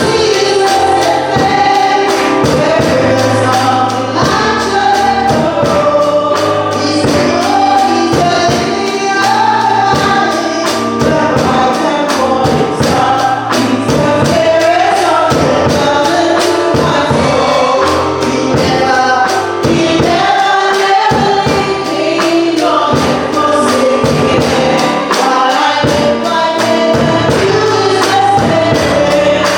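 Gospel choir singing with instrumental accompaniment over a steady beat.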